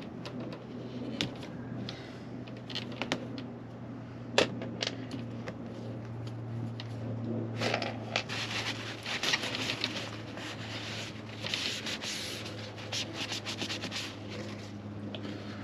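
Caravan window trim being pushed by hand into the window frame's channel: scattered clicks and taps, then several seconds of dense scraping and rubbing about halfway through, over a low steady hum.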